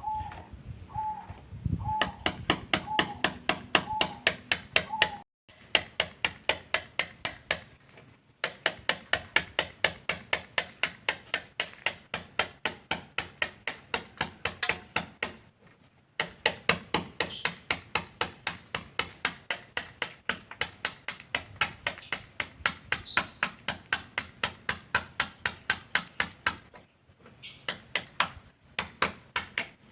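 Rapid hammer taps on metal, about four or five a second, in runs broken by short pauses, as paint and body filler are knocked off the steel body of a Mitsubishi Colt T120.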